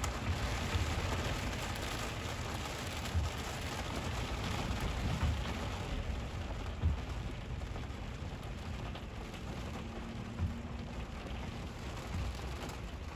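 Heavy rain pouring down, with a low rumble underneath and a few sharp thuds scattered through it.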